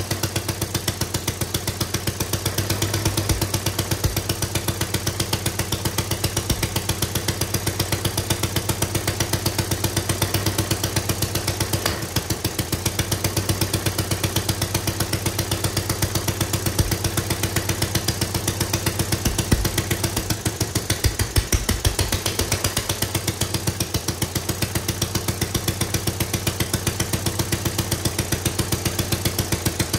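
Homemade 3D-printed single-cylinder four-stroke spark-ignition engine running on its own with a rapid, even beat.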